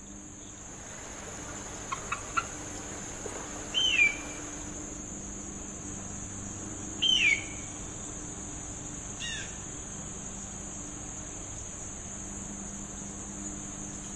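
A bird of prey giving short, down-slurred screaming calls: two loud ones about three seconds apart and a fainter third a couple of seconds later. A steady high insect buzz runs underneath, with a few brief chirps early in the stretch.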